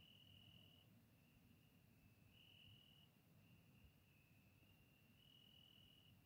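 Faint crickets trilling continuously at one high pitch, the trill swelling and fading in turn, over a faint low background rumble.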